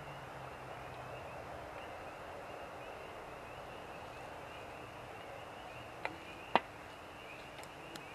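Steady forest background with a faint, evenly repeating high chirp from a distant calling animal chorus. About six seconds in come two sharp snaps, the second much louder.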